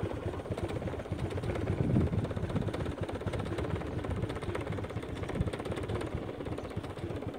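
An engine idling close by, with a rapid even low pulse that swells briefly about two seconds in.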